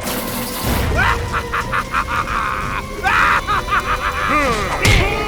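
Cartoon soundtrack: music with quick sliding and rattling sound effects, and a loud impact near the end.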